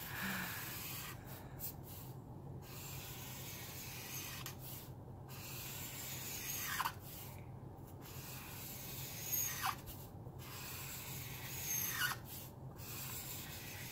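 Felt nib of a Caliart alcohol marker scratching across printer paper in long straight strokes, each a couple of seconds long, with short pauses between them. A short falling squeak comes three times in the second half.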